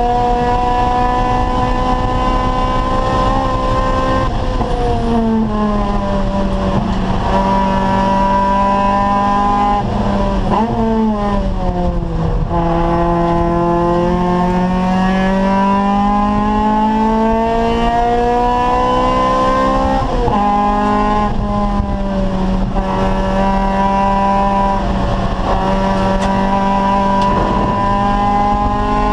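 Acura Integra race car's four-cylinder VTEC engine heard from inside the car, running at high revs under load. Its pitch falls sharply several times as the driver lifts or downshifts, then climbs back as the car accelerates, including one long slow rise in the middle.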